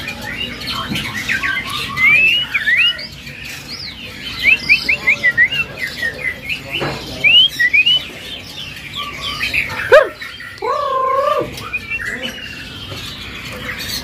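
Caged white-rumped shamas (murai batu) in full song: quick runs of short, high whistled notes sliding up and down. A lower, harsher wavering call cuts in about ten seconds in.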